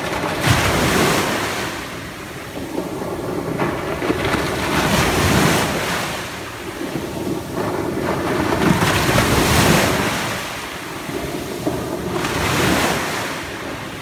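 Small ocean waves breaking and washing up a coarse sand beach, four surges about three to four seconds apart.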